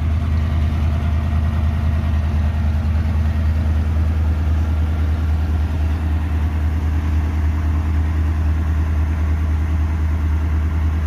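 Ford F-250 pickup's 351 V8 idling steadily, a low even hum. The seller says the engine has a miss.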